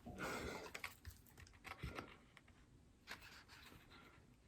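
Near silence: quiet room tone with a few faint short clicks and light rustles.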